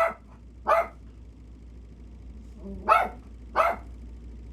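Toy poodle barking: four short, sharp barks in two pairs.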